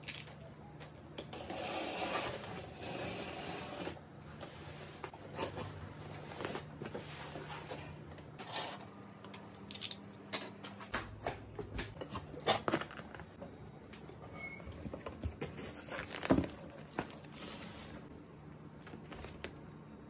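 Cardboard box being unboxed by hand: a box cutter slitting the packing tape, then paper-bedding packages handled inside the box, a run of rustles, scrapes and sharp knocks that is busiest in the second half.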